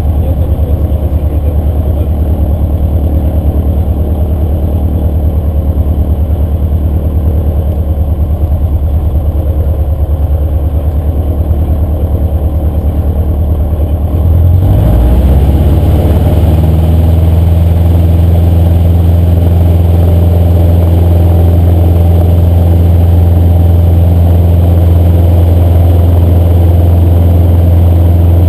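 Cessna 150's Continental O-200 four-cylinder engine and propeller droning steadily at low power, heard inside the cabin. About halfway through the engine revs up to full power and holds there, louder, for the take-off run.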